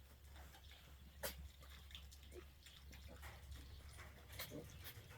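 Faint, scattered animal noises, with one sharp click about a second in.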